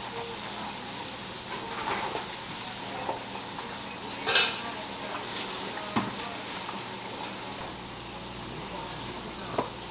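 A metal spreader clinking and scraping against a plastic sauce tub and bread rolls as sauce is scooped and spread, a few sharp clacks over steady background noise. The loudest clack comes a little past four seconds in.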